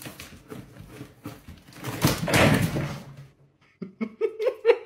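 Rustling and knocking from a cat moving about inside a plastic-lined kitchen bin, loudest about two seconds in. Near the end come a few short vocal sounds.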